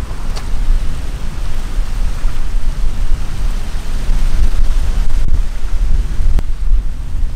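Wind buffeting the microphone in gusts, over the steady rush of water spilling over a small concrete weir.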